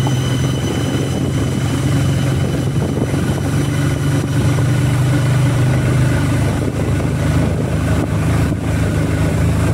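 Motorcycle engine running steadily while under way, a low even engine note with road and wind noise over it.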